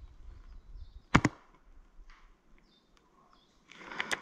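A single sharp airsoft gun shot about a second in, then rustling that builds into a quick run of clicks near the end.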